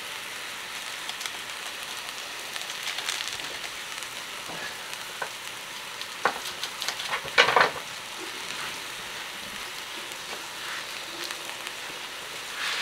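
Chopped meat frying in oil in a wok, a steady sizzling hiss. Scattered sharp clicks run through it, and about six to eight seconds in comes a cluster of louder crackles and clatter.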